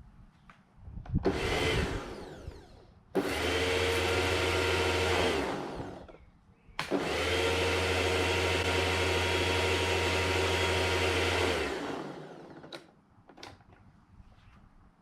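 Karcher electric pressure washer running in two bursts, about two seconds and then about five seconds, each starting abruptly, with a steady low hum under a hissing spray noise.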